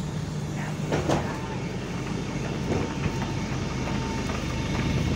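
Single-deck bus standing at the kerb with its diesel engine idling, a steady low hum with a thin steady whine above it; a sharp knock about a second in.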